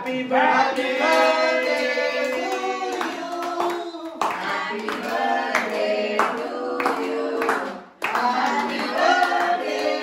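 Singing with hand clapping along, long held notes carried over the claps, broken by a short sudden dip near the end.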